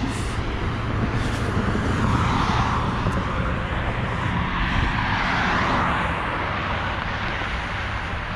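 Road traffic: a passing vehicle's engine and tyre noise, swelling through the middle and fading toward the end, over a low steady engine hum.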